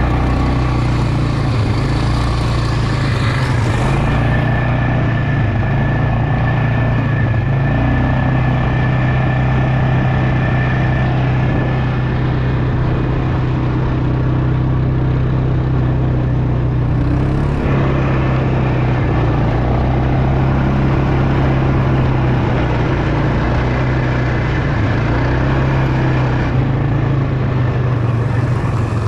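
Quad bike engine running steadily under way, heard close up from the rider's seat, with a constant low hum and a haze of ride and wind noise.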